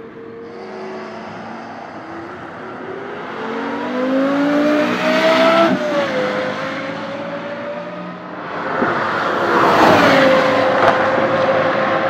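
Lexus LFA's V10 at speed on a race track. The engine note climbs to a peak about five seconds in and dips. A louder pass comes around nine to ten seconds, its pitch falling as the car goes by, then the note holds steady.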